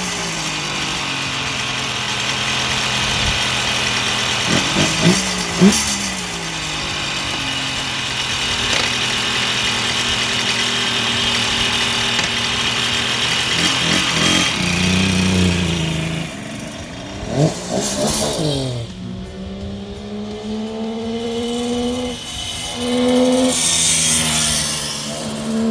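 1972 Kawasaki S2 350's two-stroke three-cylinder engine running, with a few sharp rev blips, about five seconds in and again around seventeen seconds, over a steady idle; near the end it pulls away, its pitch climbing through the gears.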